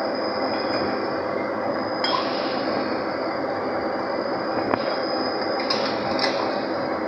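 Steady machinery din on a drilling rig floor with a constant high whine, and a few sharp metal clinks from pipe and hand tools being handled at the rotary table.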